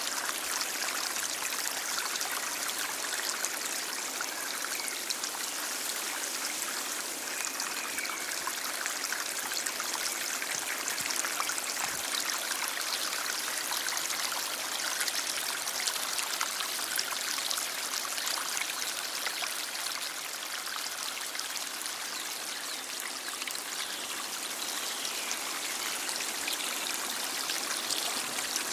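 Stream flowing steadily: a continuous, even rush and trickle of water, bright and hissy, with little deep rumble.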